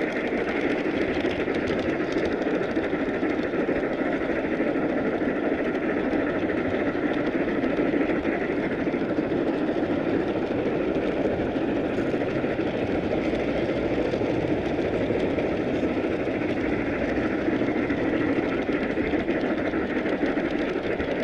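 Large-scale model train running along its track, picked up from on board: a steady rolling noise of wheels on rails.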